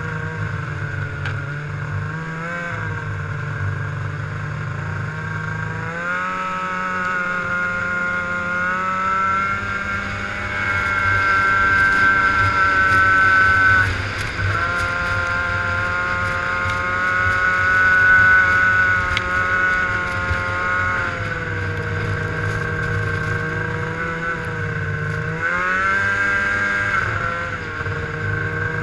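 Snowmobile engine running under way, heard from the rider's seat. Its pitch climbs as the throttle opens a few seconds in and again a little later, dips briefly halfway through, and rises once more near the end.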